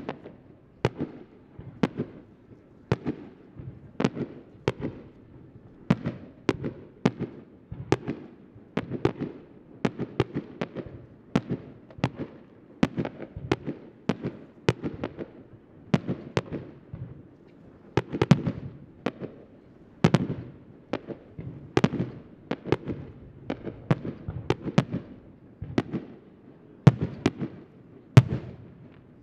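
Aerial firework shells bursting in a continuous run of sharp bangs, about one or two a second, each followed by a short low rumble.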